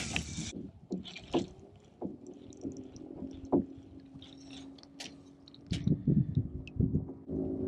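Water sloshing and splashing around a kayak, with scattered light knocks and clicks from gear, and a few dull thuds near the end.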